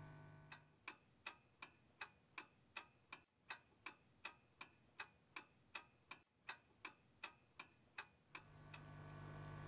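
Clock ticking sound effect, evenly spaced ticks a little under three a second. A steady low hum fades out just before the ticking starts and returns as it stops near the end.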